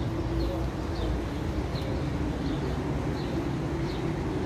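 Steady city traffic rumble, with faint short bird chirps repeating about every half second over it.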